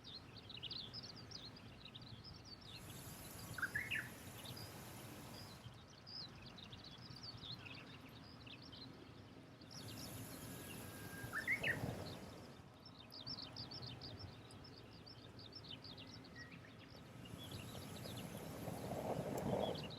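Small birds chirping and calling repeatedly in the morning air over a faint outdoor background, with a couple of louder rising calls.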